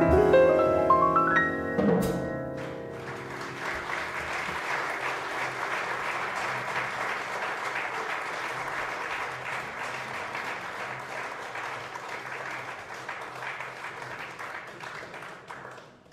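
A jazz piano trio of piano, double bass and drums finishes a bebop tune: a rising piano run and a final accent about two seconds in. Then the audience applauds, fading out near the end.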